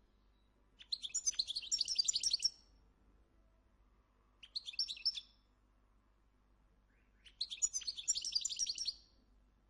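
European goldfinches singing in three bursts of rapid, high twittering: a long phrase about a second in, a shorter one around the middle, and another long phrase near the end.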